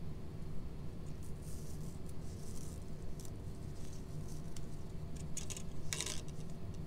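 Light rustling and small clicks of paper and plastic craft pieces handled on a tabletop, with one louder crinkle about six seconds in, over a steady low hum.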